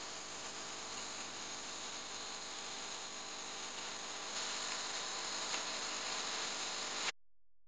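Steady, high-pitched chorus of insects in a grassy field. It cuts off suddenly about seven seconds in.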